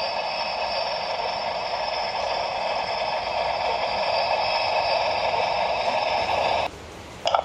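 Sound decoder of a G scale Trainline45 HSB 99-5902 Mallet model steam locomotive playing a steady hiss through the model's speaker. It cuts off suddenly near the end, and a brief burst follows just after.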